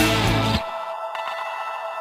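Background music: a loud, dense band track cuts off about half a second in, leaving quieter thin sustained electronic tones.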